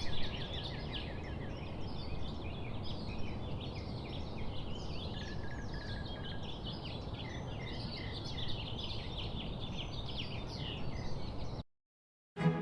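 Many small birds chirping and twittering over a steady low background rumble. It cuts off abruptly near the end.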